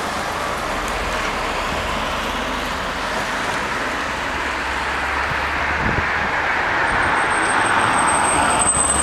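Steady rushing noise of distant vehicles, slowly growing louder, with a thin high whine coming in near the end.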